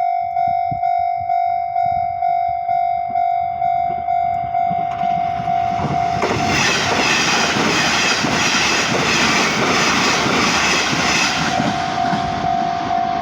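Japanese level-crossing alarm ringing in even, repeated electronic dings. A Nishitetsu electric train passes over the crossing from about six seconds in, its wheels clattering rhythmically over the rail joints and drowning out the bell until shortly before the end.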